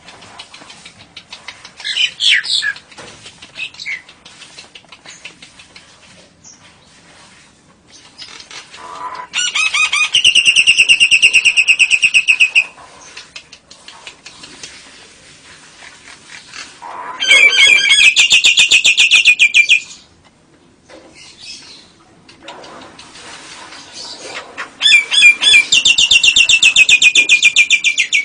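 A lovebird ngekek-ing: three long, loud, rapid chattering trills of about three seconds each, with a short call near the start and faint rustling and clicks between.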